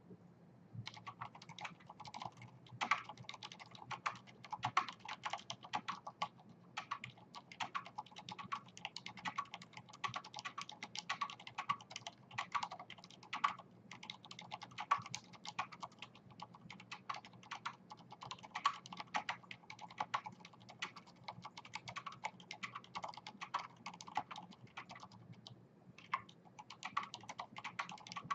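Typing on a Leopold FC980M mechanical keyboard with Cherry MX Silent switches and greased stabilizers: a fast, continuous run of keystrokes, several a second, starting about a second in, with a few brief pauses.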